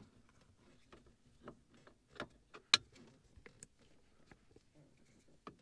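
Scattered faint clicks and ticks of a Phillips screwdriver working screws into a plastic overhead console, with one sharper click a little under three seconds in.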